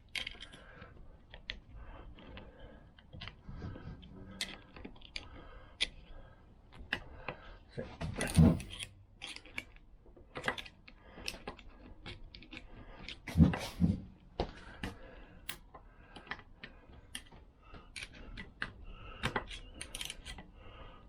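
Metal tools clicking and tapping against a Vespa PX gearbox gear cluster as a circlip is worked onto the layshaft with a screwdriver and circlip pliers. Scattered small clicks run throughout, with a few louder knocks about a third of the way in and again just past halfway.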